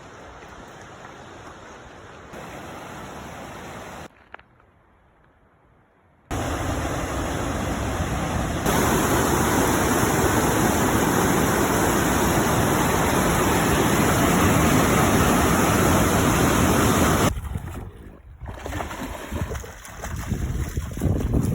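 Steady rushing water of a stream, heard in several joined clips that cut in and out abruptly: moderate at first, almost gone about four to six seconds in, then loud and even until about seventeen seconds in, fainter and uneven near the end.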